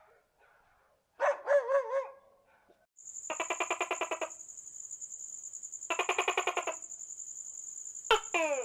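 A dog gives a brief wavering whine-like call of a few notes. After that comes a high steady pulsing tone, joined twice by a rapid buzzing trill, with a falling chirp near the end.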